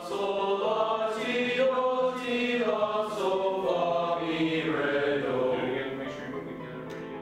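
High-school boys' choir singing held notes together, dying away near the end.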